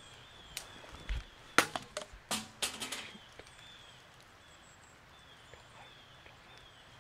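A quick cluster of sharp crackles and snaps lasting about a second and a half, starting about a second and a half in, over faint repeated high chirps.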